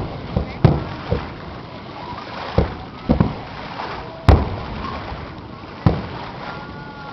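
Aerial firework shells bursting: a run of about eight sharp booms, the loudest about four seconds in.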